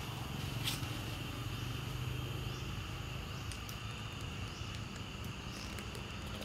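Steady high-pitched insect chorus, a continuous buzz, with a low hum under it for the first three seconds and a few faint clicks later on.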